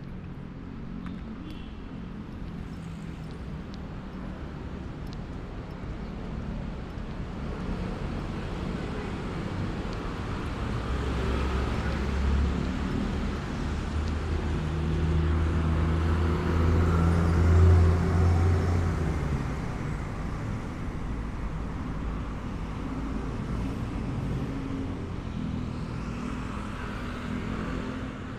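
City street traffic with vehicles passing. One engine's low hum grows louder, is loudest about two-thirds of the way through, then fades away.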